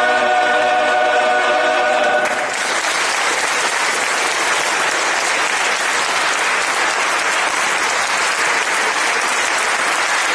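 A male voice choir holds its final chord, which cuts off about two seconds in. Audience applause follows and continues steadily.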